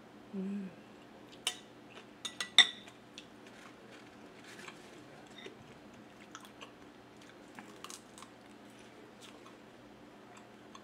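A short hummed "mm" at the start. Then a metal spoon clinks a few times against a glass bowl, loudest about two and a half seconds in, followed by soft chewing and mouth sounds.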